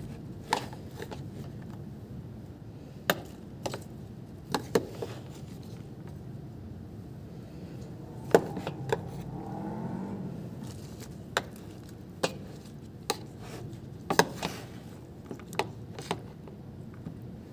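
Eating utensil knocking and scraping against a food bowl: about a dozen sharp, irregular clicks spread a second or so apart, over a low steady background hum.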